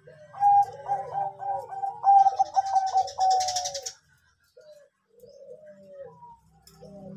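Zebra dove (Bangkok-strain perkutut) cooing: a loud run of rapid staccato notes for about four seconds, then softer coo phrases.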